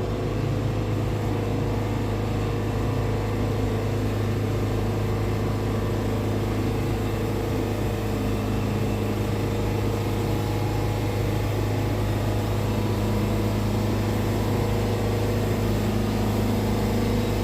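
Portable band sawmill running steadily, its engine humming as the resharpened Turbo 7 band blade saws a board off a red cedar cant.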